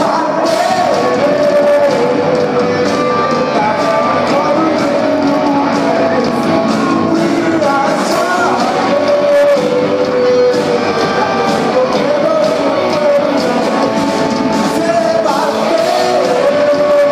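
Live rock band playing: electric guitars, bass and drums with cymbals, and a singer's voice holding long melodic notes over them.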